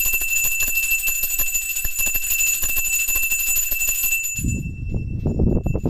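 Temple bell ringing continuously with quick, even clapper strikes. A little over four seconds in, the ringing breaks off and a louder low rumbling noise comes in.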